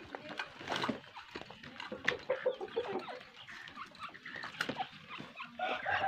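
Caged francolins (teetar) clucking and calling in short notes, among sharp clicks and rattles of the wire cages being handled as the birds are fed.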